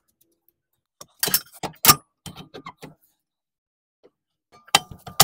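Metal parts clinking and knocking together as a new lower control arm is worked into place at a car's front wheel. A quick run of sharp clanks comes in the first half, then a pause, then more near the end, some with a short metallic ring.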